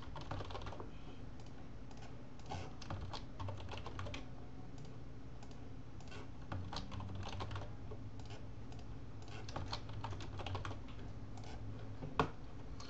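Computer keyboard typing in short bursts of keystrokes with pauses between them, and a single louder click near the end.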